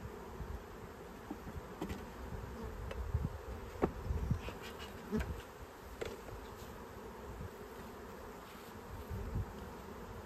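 Honey bees buzzing around an opened hive in a steady drone, with scattered short clicks and knocks of wooden hive boxes and frames being handled.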